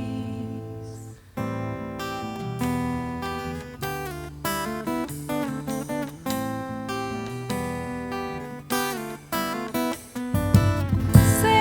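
Acoustic guitar playing an instrumental passage between sung verses, picked single notes and strummed chords with a brief pause about a second in and a fuller sound near the end.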